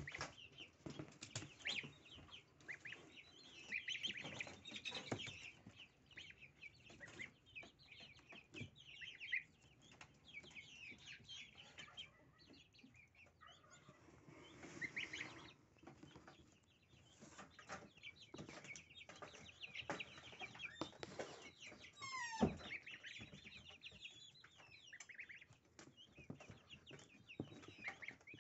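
Goslings peeping in many short high calls while they peck and tug at a bunch of dill, with rustling and small pecking clicks in the dill and wood-shaving litter. One quick downward-gliding sound about two-thirds of the way in stands out as the loudest moment.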